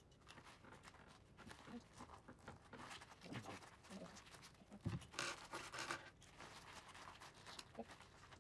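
Faint handling noises: gloved hands and a hand pop riveter clicking and rustling as it is worked, with a soft knock about five seconds in followed by about a second of louder rustling.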